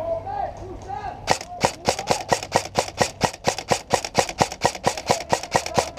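Airsoft gun firing a fast, steady string of sharp shots, about six a second, starting a little over a second in.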